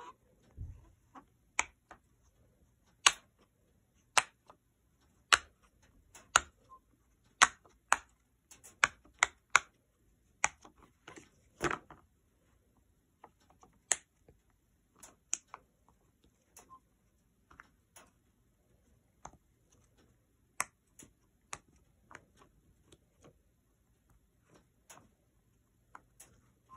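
Silicone pop-it fidget toy shaped like a Christmas tree, its bubbles pushed through one at a time by a finger, each giving a short sharp pop. The pops come irregularly, about one a second, quicker for a few seconds around the middle.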